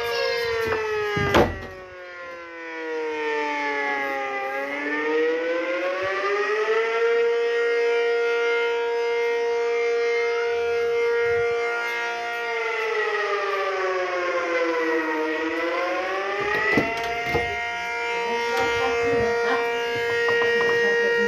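Tornado siren wailing: a steady tone rich in overtones that slides down in pitch and back up twice, about ten seconds apart, holding steady between the dips. A sharp knock sounds about a second in.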